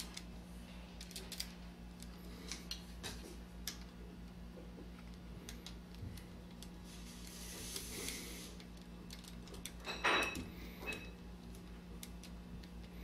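Small metal parts and hand tools being handled while a chain guard and lock nut are fastened on a Columbia automatic taper: scattered light clicks and taps, a soft scrape, and a brief metallic scrape that rings about ten seconds in, the loudest sound.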